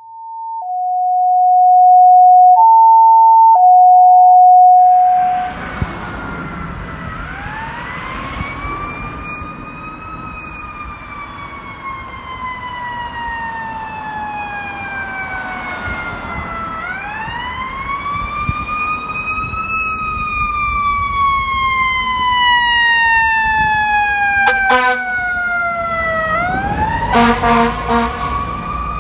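A pair of loud alternating electronic tones for about five seconds. Then a fire truck siren wails over road noise, rising quickly and falling slowly in long cycles. Near the end the truck's air horn blasts several times.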